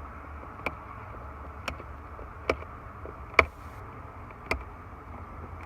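Five sharp, irregularly spaced clicks and knocks over a steady low hum, as electrical parts are pulled and unclipped from a vehicle's wiring panel.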